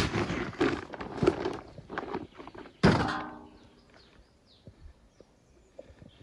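Scattered knocks and rustling, then one loud thunk about three seconds in that rings briefly and fades.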